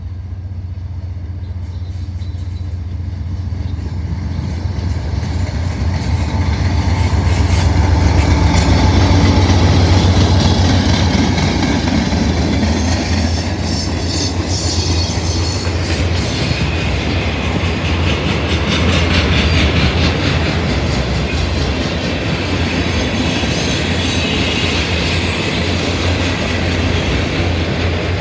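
Norfolk Southern freight train passing: the diesel locomotive's engine drone grows louder and is loudest about eight to ten seconds in as it goes by. Then the autorack cars roll past with a steady clatter of wheels on the rails.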